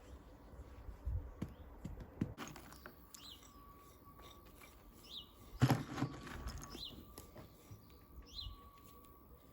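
A bird calling with short, falling chirps, one every second or two, over faint outdoor background. Scattered knocks sound among the chirps, the loudest a little past halfway.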